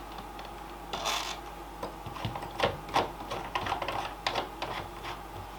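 Irregular small clicks and taps of a clamp and plastic casing parts being handled and fitted together, with a brief rustle about a second in.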